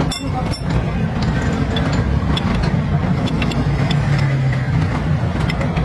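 A motor vehicle's engine running steadily with a low rumble, with a few light metallic clicks from hand tools on the axle.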